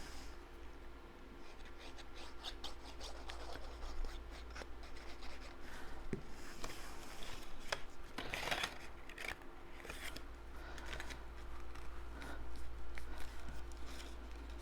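Cardstock pieces being handled and pressed into place by hand: light paper rustling and rubbing with scattered soft clicks and taps.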